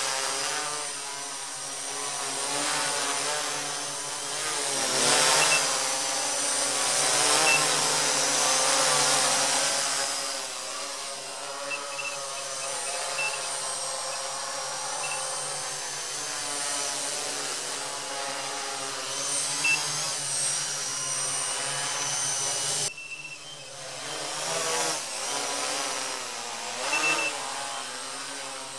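Quadcopter's electric motors and propellers buzzing, the pitch wavering up and down as the throttle changes. The sound drops abruptly about three quarters of the way through, then carries on.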